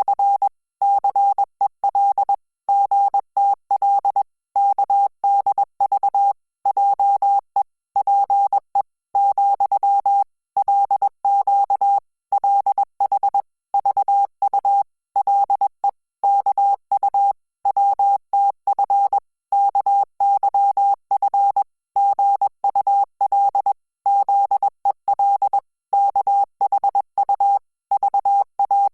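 Morse code audio: a single steady beep keyed on and off in dots and dashes at 20 words per minute, sending text in Korean (Hangul) Morse code.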